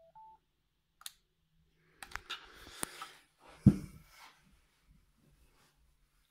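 Plastic over-ear Bluetooth headphones being handled: a faint rising two-note beep at the start as a button on the earcup is pressed, then clicks and plastic rattling. About 3.7 s in comes a dull thump, the loudest sound, as they are set down on a towel, followed by a few light ticks.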